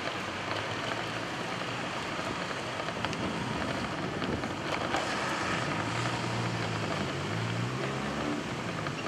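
Steady rushing noise of wind and road while riding a bicycle. In the second half a motor vehicle's engine hum rises and falls in pitch.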